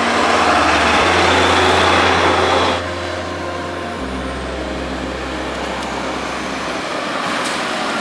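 Large farm tractors, a Zetor and a Deutz-Fahr, driving past on a paved road with their diesel engines running steadily. The sound drops abruptly a little under three seconds in and changes character again at about four seconds.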